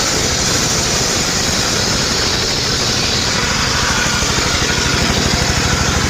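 Engine-driven circular saw blade cutting through a trembesi (rain tree) log, a steady high hiss of the cut over the engine's even low chugging.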